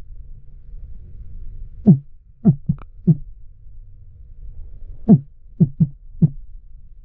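Underwater recording: a steady low rumble with two clusters of short, dull thumps, four or five in each, about three seconds apart.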